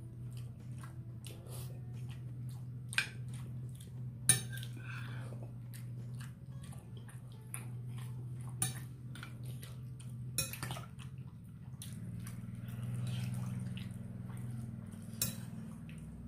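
Metal spoon scraping and clinking against a plate of rice, with about five sharp clinks, the loudest about four seconds in, over a steady low hum.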